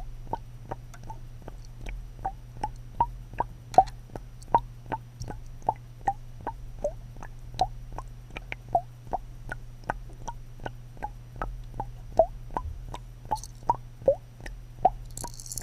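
Small water plops, about two to three a second at an uneven pace, over a steady low hum.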